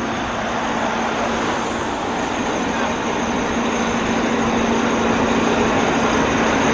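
Town-centre road traffic: motor vehicles running past, with a steady engine hum underneath, slowly growing louder.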